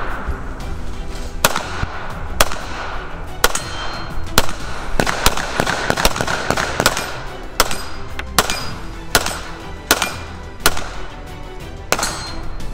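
Pistol fired one round at a time, about a dozen sharp shots roughly a second apart, over background music.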